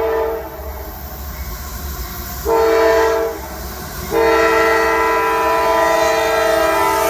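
Freight diesel locomotive's multi-chime air horn blowing a grade-crossing signal: a blast ending just after the start, a short blast about two and a half seconds in, then a long blast from about four seconds in, over the low rumble of the approaching train.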